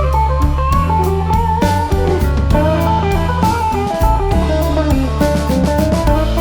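Background music: an electric-guitar-led instrumental track in a bluesy style, with bass and a steady drum beat.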